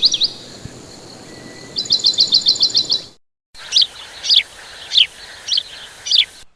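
Songbirds calling: a quick run of sharp high, repeating chirps, then after a short break a series of about five clear whistled notes, each falling in pitch.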